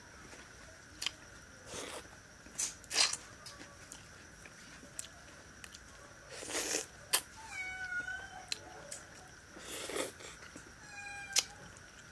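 Wet smacking and chewing of someone eating rice and fish curry by hand, in several short loud bursts. A cat meows faintly twice, about eight and eleven seconds in.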